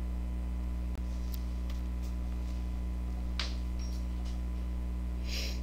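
Steady low electrical hum, like mains hum in the recording, with two faint brief hissing scratches about three and a half and five seconds in and a momentary dropout about a second in.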